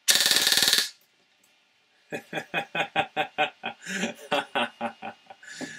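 3D-printed FGC-6FA open-bolt gas blowback airsoft gun firing a single rapid full-auto burst lasting just under a second, with a heavier main spring and long-cycle bolt fitted. About two seconds in, a man laughs for about three seconds.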